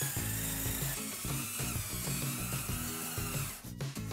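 Background music with a rhythmic bass line. A high whine wavers in pitch over it and cuts out briefly near the end.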